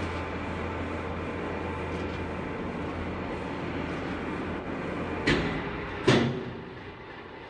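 Elevator running with a steady low hum. Two sharp clunks come at about five and six seconds in, the second the louder, and then the sound dies away.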